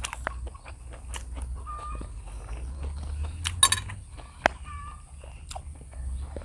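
Chickens clucking a few short times, the loudest call a little past the middle. Small sharp clicks and smacks of eating sound between the calls.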